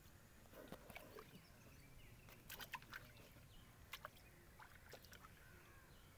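Near silence on the water, with a few faint short ticks and small splashes as a young hooked wallago catfish is drawn up on the line beside a wooden canoe.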